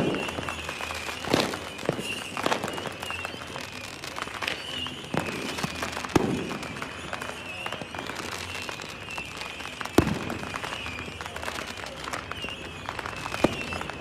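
Fireworks going off: about half a dozen separate booming bangs over a constant crackle, the sharpest bang about ten seconds in. A thin, wavering high tone runs underneath.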